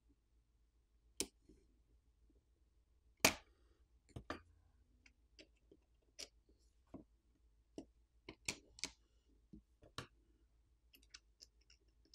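Sparse light clicks and taps of small repair tools and parts on a Google Pixel 8 being taken apart. The two loudest come about one and three seconds in, with a quick run of clicks around eight to nine seconds.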